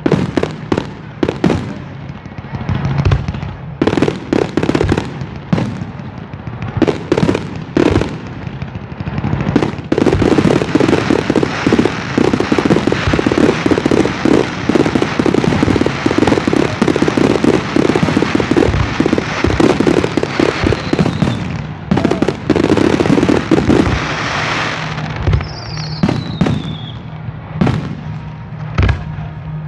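Fireworks display: a run of separate bangs, then about ten seconds in a dense spell of rapid crackling that lasts some twelve seconds. Near the end come high whistles falling in pitch.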